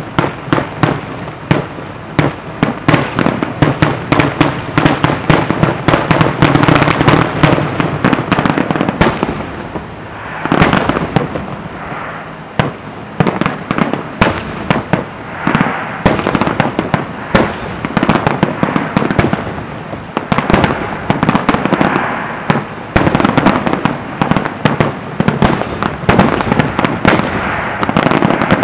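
Professional fireworks display: a continuous barrage of aerial shells bursting in rapid, overlapping bangs and crackles, easing briefly about ten seconds in before building again.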